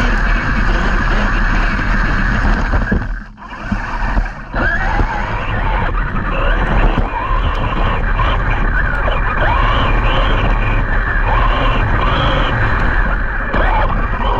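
Large-scale brushless RC trucks driving off-road: the electric motors whine, rising and falling in pitch as they speed up and slow down, over a steady rush of noise, with a brief drop about three seconds in.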